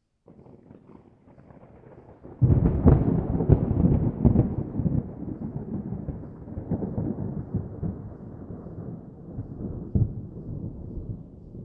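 Thunder: a faint low rumble, then a sudden loud clap about two and a half seconds in that crackles for a couple of seconds and rolls away in a long, slowly fading rumble, with one more sharp crack near the end.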